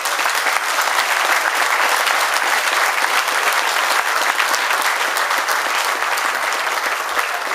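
An audience applauding: loud, steady clapping from many hands.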